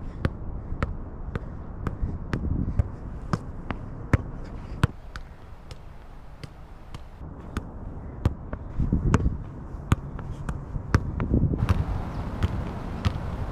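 A football being juggled with the feet, a short dull tap at each touch, about two a second, while a low rumble swells now and then in the background.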